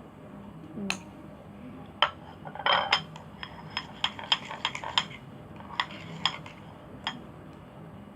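A stirring utensil clinking and tapping against the side of a container as slime ingredients are mixed: irregular clicks, most of them bunched in the middle.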